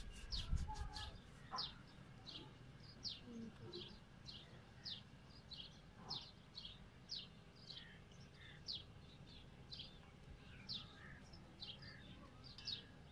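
A small bird chirping over and over: short, high chirps that fall in pitch, about two a second, keeping an even pace.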